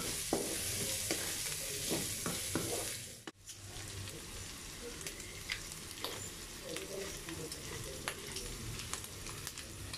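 Diced pork belly and onion sizzling in a hot nonstick wok, with a wooden spatula scraping and stirring through them over the first three seconds. After a brief dropout the sizzling goes on steadily, with scattered small pops and clicks.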